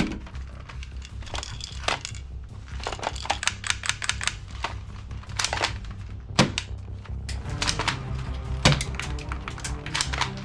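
Many short, sharp clicks and knocks at irregular spacing, thickest in the middle stretch, over steady background music.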